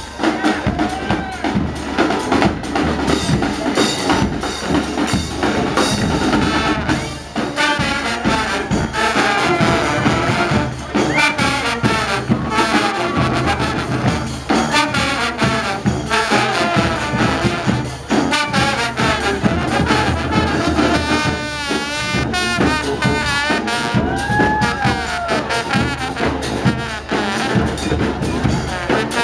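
A brass marching band playing live, with trumpets and trombones carrying the tune over steady drum beats.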